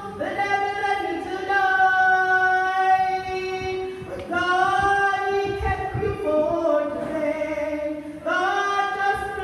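A woman singing a gospel song in long held notes, phrases beginning about a second, four seconds and eight seconds in.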